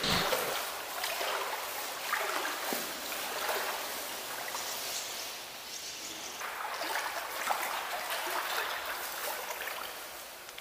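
Hurried footsteps through deep wet mud, squelching and sloshing unevenly.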